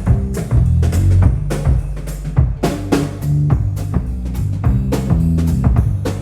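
Drum kit playing a steady beat with kick and snare hits, over a bass guitar line, during a band soundcheck with no vocals.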